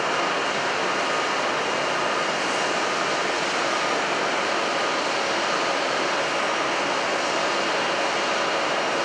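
Horizontal boring and milling machine (Droop & Rein D 175) running, a steady mechanical drone with a faint high whine over it.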